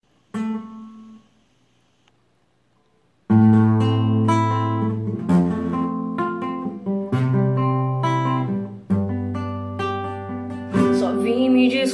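Acoustic guitar: one chord strummed and left to ring out, a pause of about two seconds, then a steady strummed chord progression as the song's intro, with the chord changing every couple of seconds. Her singing voice comes in near the end.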